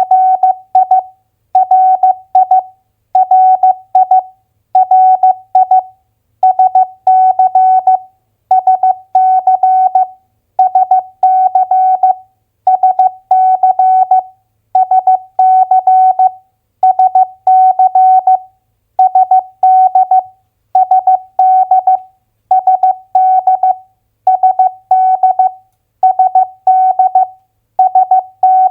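Morse code at 15 words per minute, keyed as a single steady beeping tone: short groups of dots and dashes, each a US state's two-letter abbreviation, come about every two seconds with pauses between them.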